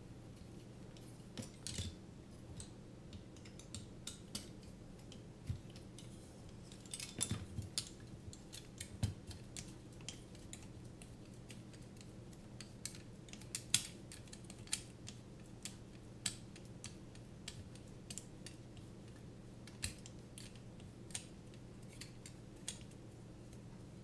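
Scattered small clicks and taps of carbon-fibre drone frame parts and small screws being handled, and a hex screwdriver turning a screw into a frame standoff. A busy patch of clicks comes about seven to nine seconds in, then sparser single ticks, over a low steady hum.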